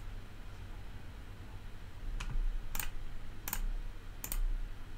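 Computer mouse clicking: a single click at the start, then four separate clicks less than a second apart from about two seconds in, over a steady low hum.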